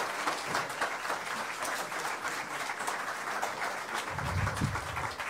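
Steady audience applause, a dense patter of many hands clapping, with a brief low rumble about four seconds in.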